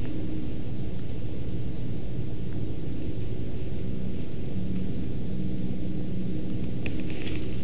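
Steady rushing noise with a low hum and hiss from the nest webcam's microphone. A few faint, short high chirps come near the end.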